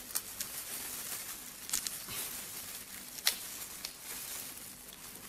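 Cooked crayfish shell cracking and tearing as hands in disposable plastic gloves pull it apart, with the gloves crinkling. There are a few sharp cracks, the loudest about three seconds in.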